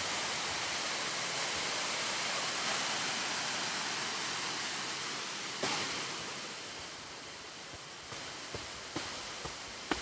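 Steady rushing roar of a large waterfall, continuous and fading gradually in the second half. A knock about halfway through and a few light knocks near the end, footsteps on rock steps.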